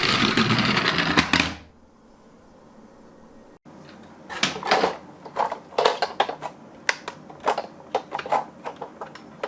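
Light, irregular clicks and clacks of small toy cars and plastic track pieces being handled, about fifteen sharp ticks over the last five seconds. Before them, a loud rushing noise stops suddenly about a second and a half in.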